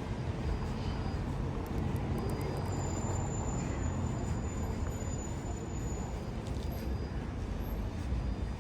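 City street traffic: a steady low engine rumble of vehicles running close by, with a faint thin high whine from about three to six seconds in.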